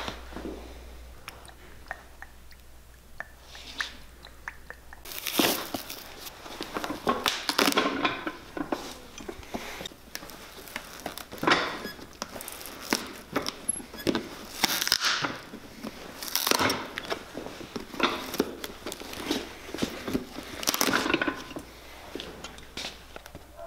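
Pincers working nails out of a cowboy boot's heel and the worn leather outsole being pried and torn away from the welt. After a quieter first few seconds comes a run of crunching, tearing pulls every second or two.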